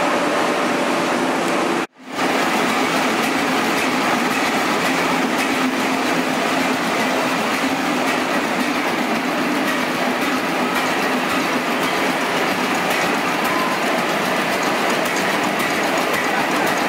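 Vintage stationary engines running with a steady, dense mechanical clatter. The sound cuts out for a moment about two seconds in; after that it comes from a large multi-cylinder stationary engine running.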